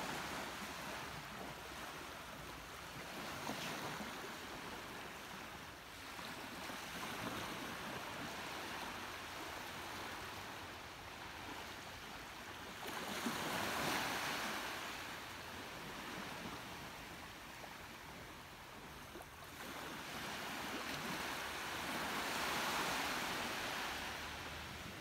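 Small waves washing onto the shore, a hiss of surf that swells and fades every few seconds.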